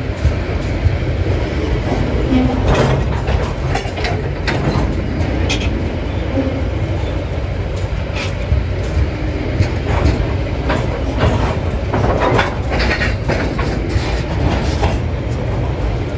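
Freight train wagons rolling past over the rails: a steady low rumble with irregular metallic clanks and clatter.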